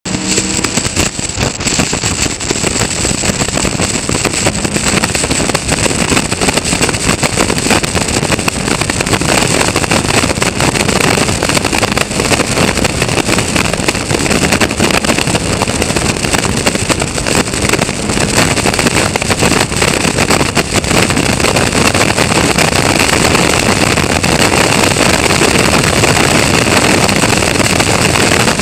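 Onboard sound of a Caterham Roadsport race car at speed: its engine running hard under loud, steady wind rush on the open car's camera microphone. The sound comes in abruptly at the start.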